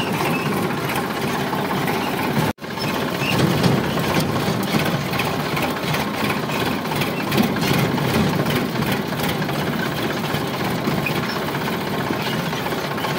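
Sonalika tractor's diesel engine running steadily as the tractor drives, heard from the driver's seat. The sound drops out for an instant about two and a half seconds in.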